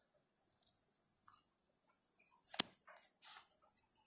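A cricket chirping in the background, a high steady trill that pulses about eight times a second. A single sharp click comes about two and a half seconds in.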